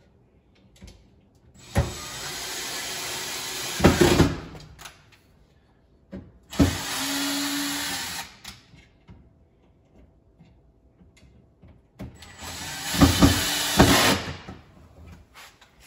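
Cordless drill driving screws to fasten a drawer slide inside a cabinet: three short runs of the motor, each about two seconds long, the first and last ending in a few sharp clicks.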